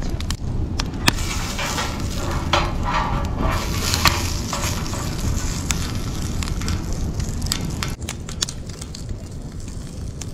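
Wood fire crackling in a steel fire pit, with sharp pops over a steady low rumble. Bacon fat sizzles on a metal tray set over the flames.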